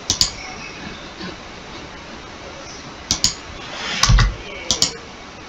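Computer mouse clicking: four pairs of sharp clicks, one at the start and three between about three and five seconds in. A low thump on the desk comes about four seconds in.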